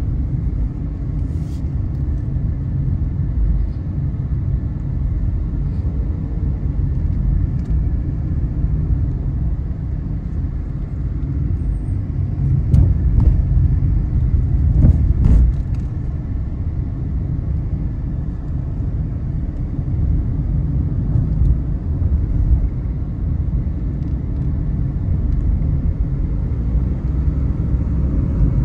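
Car on the move: a steady low rumble of engine and tyre noise, swelling slightly in the middle, with a few faint clicks and knocks.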